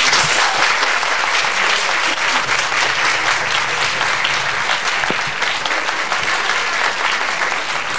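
Audience applauding, many hands clapping at a steady strength.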